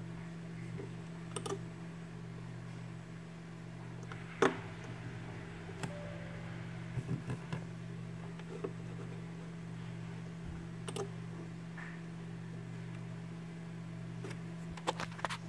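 Steady low hum of a running computer, with a few sharp computer-mouse clicks scattered through it; the loudest click comes about four seconds in.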